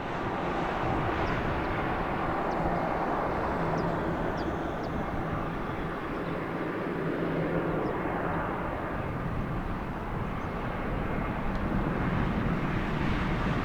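Jet engines of an Airbus A320 airliner running steadily as it comes in to land, a continuous jet noise with a faint low hum, easing a little and then building again near the end.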